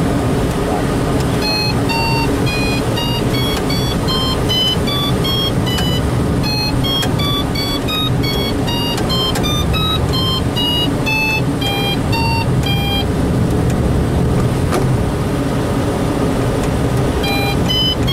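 Steady engine and wind noise inside the cockpit of a light aircraft in flight, overlaid by a quick run of electronic beeps jumping between pitches like a tune, about three a second. The beeping starts about a second in, stops about two-thirds of the way through and starts again near the end.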